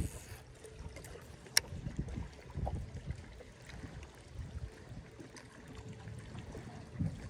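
Water lapping quietly against a fishing boat's hull, with one sharp click about a second and a half in.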